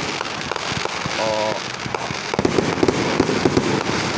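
Consumer fireworks going off close by: dense crackling and popping with many sharp bangs overlapping, and a brief warbling tone about a second in.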